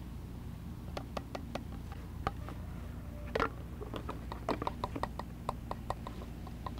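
Light clicks and taps of plastic containers and a funnel being handled and set down, with one louder knock about three and a half seconds in, over a low steady hum.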